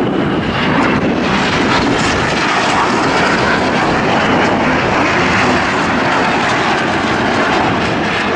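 Red Arrows' BAE Hawk T1 jets passing in formation, a loud, steady rush of jet engine noise.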